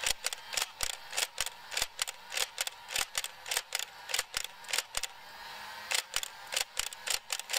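Nerf Elite Stockade flywheel blaster being fired in quick succession: the motor hums steadily under a run of sharp clicks several times a second as darts are pushed through the spinning flywheels, with a short gap about five seconds in.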